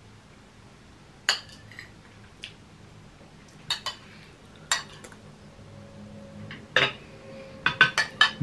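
Metal cutlery and a serving spoon clinking and scraping on ceramic plates as food is served and eaten: scattered sharp clinks, with a quicker run of them near the end.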